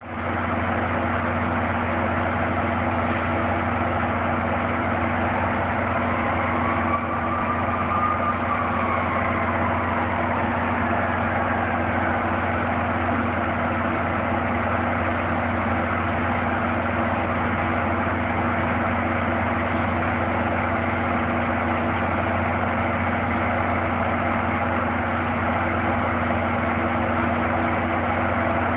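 Commuter-train diesel locomotive idling steadily, a constant low engine hum, with a faint whine that rises and falls once about eight seconds in.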